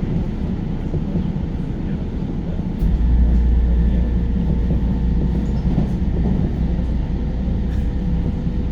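JR New Rapid train running along the line, heard from inside: a steady rumble and rush of wheels on rail. About three seconds in, a deeper low rumble suddenly grows louder and stays.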